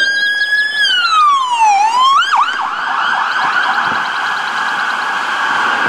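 Police car electronic siren: a held tone that slides slowly down, gives a couple of quick upward whoops, then switches to a fast warbling yelp for the rest of the time.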